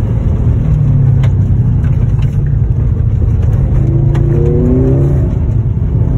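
Subaru WRX STI's turbocharged flat-four engine running under steady throttle on a dirt road, heard from inside the cabin with heavy tyre rumble. There are a few sharp ticks, and a short rise in pitch about four seconds in.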